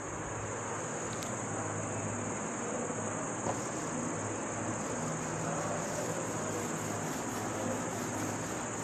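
Crickets chirping in a steady, high-pitched trill.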